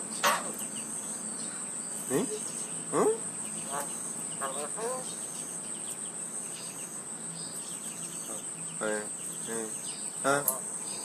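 A Javan myna giving scattered short calls: a few upward-gliding notes and quick stuttering runs of notes, separated by pauses. Under them runs a steady high-pitched cricket trill.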